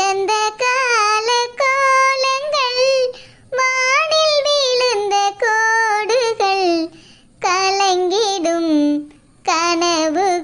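A high-pitched, childlike voice singing long held notes with a wavering pitch, in phrases of a few seconds separated by short breaths.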